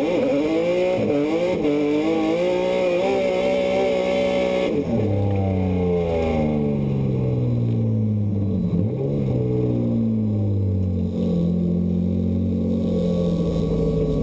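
Drift car's engine heard from inside the cockpit, running at high revs with the revs dipping and climbing as the throttle works, over a hiss of tyre squeal. About five seconds in the tyre noise stops and the engine drops to low revs, then slowly winds down and settles as the car coasts off the throttle at the end of the run.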